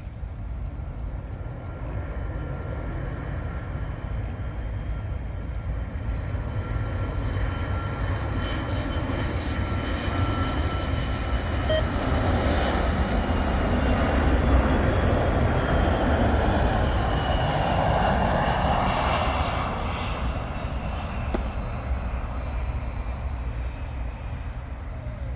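Boeing E-3 Sentry AWACS jet engines as the aircraft passes, a steady rumble that grows louder to a peak over a few seconds and then eases off. Faint whining tones slide slowly down in pitch as it goes by.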